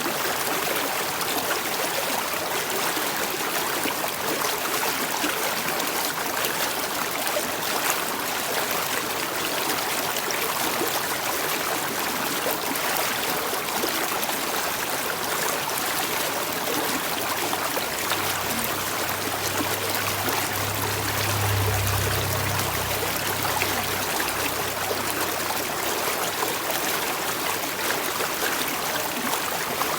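Flowing water running steadily in a continuous trickling stream. Past the middle, a low hum swells for several seconds and fades again beneath it.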